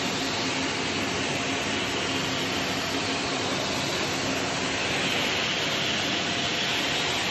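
Philips PowerCyclone FC9350 bagless canister vacuum cleaner running at a steady pitch, its floor nozzle being pushed over a tiled floor as it sucks up spilled coffee grounds.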